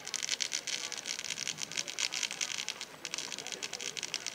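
Metallic 12-inch cone firework fountain burning, spraying sparks with a steady hiss and a fast, irregular sputter of crackles.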